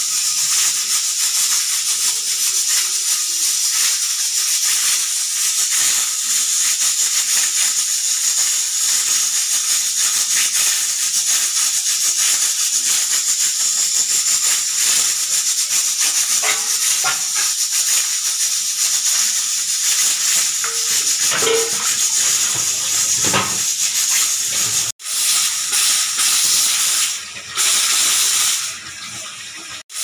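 Aluminium pressure cooker on the boil, steam escaping at its weighted whistle valve with a steady, loud, high hiss. The hiss breaks off sharply about 25 seconds in and dips twice near the end.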